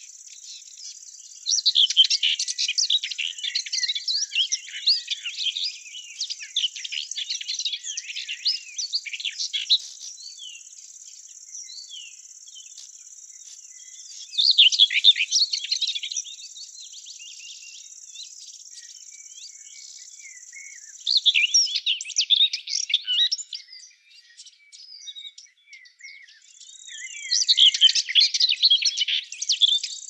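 Small birds twittering in bursts of rapid chirps, four phrases a few seconds apart, over a steady high-pitched drone of crickets that drops out for a few seconds past the middle.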